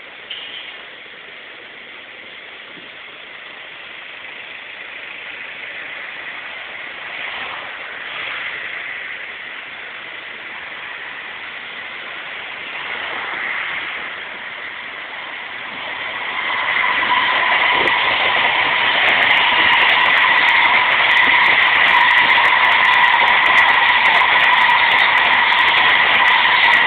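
Tokaido Shinkansen bullet train approaching and passing close by on the elevated viaduct, its sound building from about halfway through into a loud, steady rush with a steady high whine. Road traffic is heard before it.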